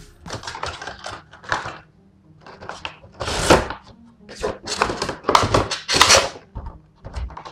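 Thin vacuum-formed plastic packaging tray crinkling and knocking against its cardboard box as it is handled and lifted out: a run of irregular rustles and thunks, loudest about halfway through and again a little later.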